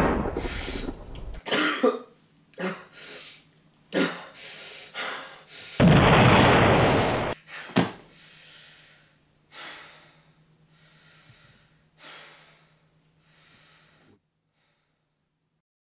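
A man coughing and gasping for breath in a string of short bursts, one loud gasp about six seconds in, then fainter and further apart until they stop near the end; a loud low rumble fades out in the first second and a faint steady hum runs underneath.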